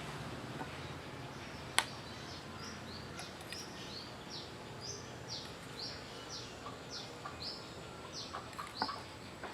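A bird calling over and over in a quick series of short, high notes that slide downward, about two or three a second. A single sharp click stands out about two seconds in.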